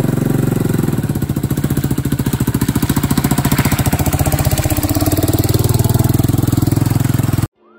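Sport quad's engine running close by with a fast, even pulse and little change in pitch. It cuts off suddenly near the end, where soft music begins.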